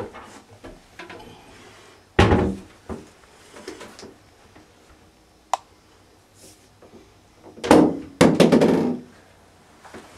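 Wooden knocks and thumps of a bathroom vanity cabinet being handled: one heavy thump about two seconds in, a single sharp click midway, and a burst of bangs and rattling near the end.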